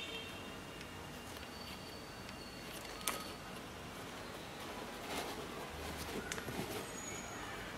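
Faint handling noise of an Adidas Yeezy Boost 700 sneaker being turned in the hands: soft rustles and knocks of the shoe and its paper hang tag, with a sharp click about three seconds in, over a steady hiss.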